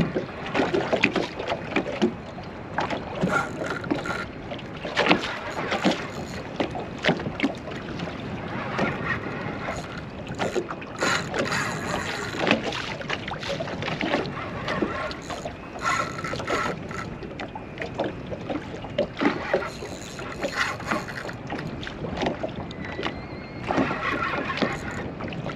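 Small waves slapping against the hull of a small aluminium boat, in irregular knocks over a steady wash of water and wind. A fishing reel is cranked now and then as a hooked fish is played on a heavily bent rod.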